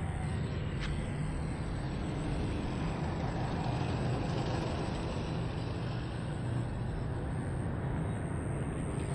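A motor vehicle's engine running steadily close by, a continuous low rumble, with one sharp click just under a second in.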